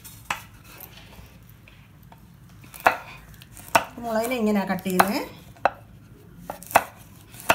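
Kitchen knife chopping bell pepper on a wooden chopping board: about seven separate sharp knocks of the blade striking the board, spaced unevenly, roughly a second apart.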